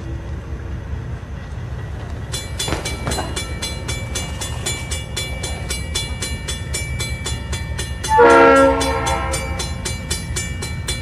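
GE Dash 8-40CW diesel locomotive's V16 engine rumbling steadily as it leads a freight train. About two seconds in, a fast, even metallic ticking with a ringing tone starts and keeps going. About eight seconds in, the locomotive's air horn gives one short, loud blast.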